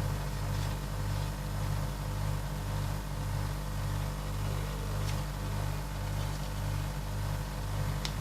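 Low, steady machine hum that pulses about twice a second, with a few faint clicks.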